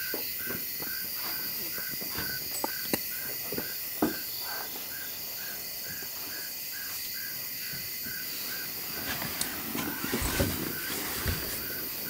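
Night-time insect chorus: a steady high trill with a chirp repeating about three times a second. A few faint knocks and some rustling come through, the rustling mostly near the end.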